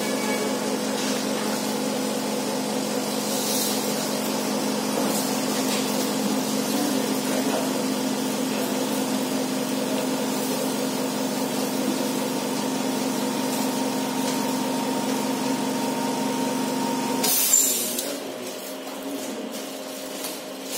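Steady machine hum, several even tones over a hiss. It stops abruptly about seventeen seconds in with a short burst of noise, leaving quieter, uneven room sound.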